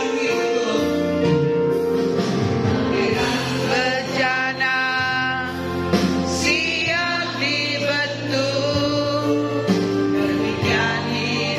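Christian worship song: voices singing with vibrato over held instrumental chords.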